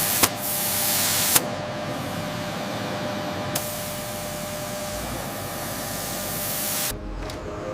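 A steady hiss like a spray or jet of gas, with two sharp clicks in the first second and a half. It cuts off suddenly about seven seconds in.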